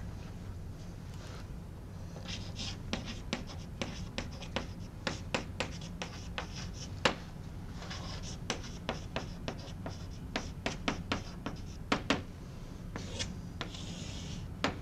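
Chalk writing on a blackboard: many sharp taps of the chalk against the board, with short scratchy strokes in between, over a steady low room hum.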